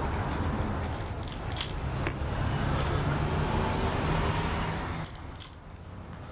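A motor vehicle passing nearby: a steady low engine hum over road noise that fades away about five seconds in, with a few faint clicks early on.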